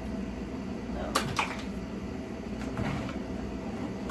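A small bathroom trash can and its loose part being handled, with a sharp click about a second in and a few light knocks and rustles, over a steady low hum.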